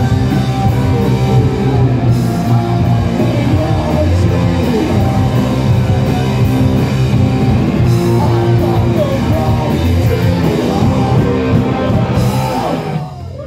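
Rock band playing live, with the song coming to an end about thirteen seconds in.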